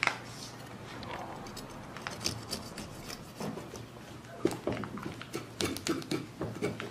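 Serrated bread knife sawing back and forth through a panettone and its paper baking mold: irregular rasping strokes with crackles and clicks, the sharpest at the very start and about four and a half seconds in.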